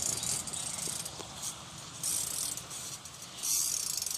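BMX rear hub's freewheel ratchet clicking rapidly as the bike coasts, the ticking swelling and fading as the wheel speeds up and slows.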